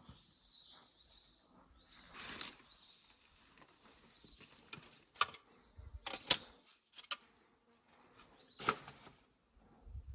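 A few separate footsteps crunching on stony ground, with small birds chirping in the background.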